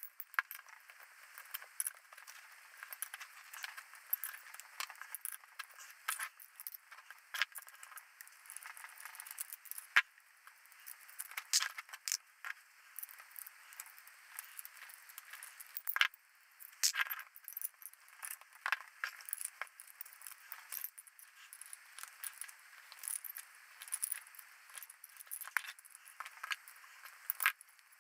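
Small steel wrenches clinking, clicking and scraping against the nuts, bolts and metal casing of a fluidic transducer as its bolts are undone by hand, in irregular taps with a couple of sharper knocks.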